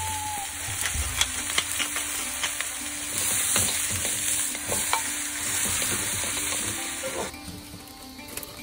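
Sliced onion and vegetables sizzling in a hot wok while a wooden spatula stirs them, with irregular clicks and scrapes of the spatula against the pan. The sizzling cuts off about seven seconds in.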